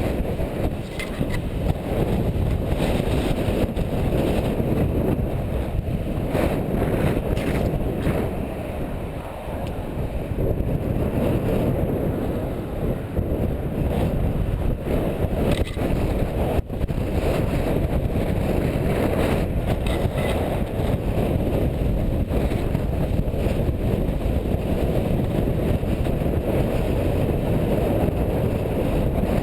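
Strong gusting wind buffeting the GoPro's microphone, a loud, steady low rumble.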